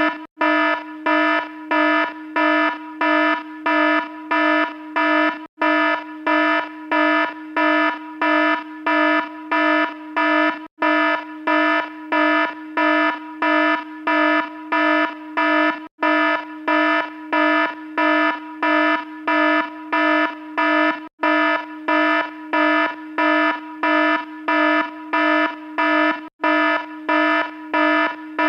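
An alarm beeping steadily, about two low, buzzy beeps a second, with a brief break about every five seconds.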